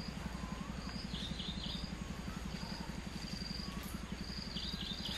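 Insects trilling in short high bursts about once a second, with a bird giving a quick three-note falling call twice and a few soft low whistles, over a steady low pulsing hum.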